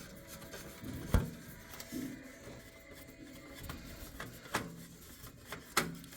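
Scattered light clicks and knocks of a motherboard and its metal Micro ATX case being handled as the board is worked loose and lifted out. One sharper knock comes about a second in, and several lighter clicks follow in the second half.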